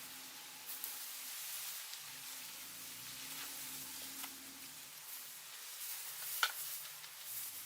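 Steady crackling hiss with scattered sharp clicks, one louder click about six and a half seconds in.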